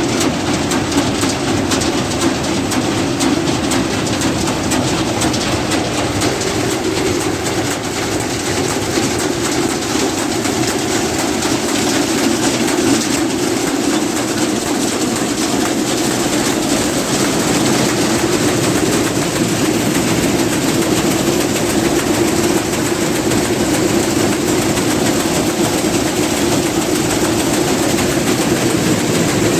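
Niva SK-5 combine harvester running after its winter lay-up, its engine and machinery turning over with a loud, steady, dense clatter.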